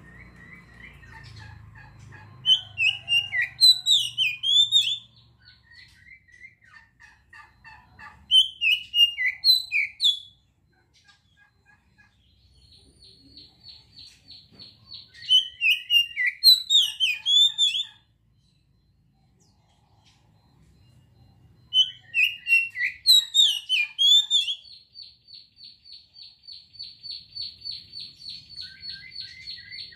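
Oriental magpie-robin (kacer) singing: four loud bursts of sharp, varied whistled notes a few seconds apart. A long fast buzzy rattle on one high pitch comes between them near the middle and again through the last few seconds.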